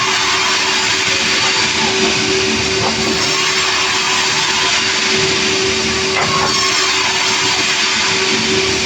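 Sawmill machinery running steadily, a loud even noise with a constant hum.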